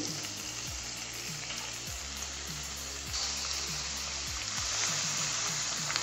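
Raw chicken pieces sizzling as they go into hot mustard oil with fried onions and curry leaves in a kadai. The sizzle grows a little louder about three seconds in, with background music underneath.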